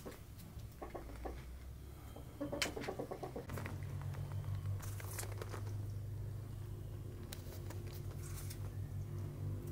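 Light scattered taps and clicks: a knife cutting tomatoes by hand in the first seconds, then a hen and a rooster pecking and scratching at dry dirt. A steady low hum comes in about three and a half seconds in.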